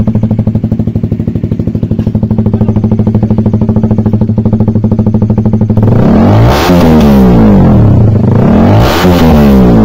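A KTM Duke 390's single-cylinder engine running loud through an aftermarket VMAX Racing full-system exhaust. It idles with a steady pulsing beat, then is revved twice in the second half, the pitch rising and falling each time.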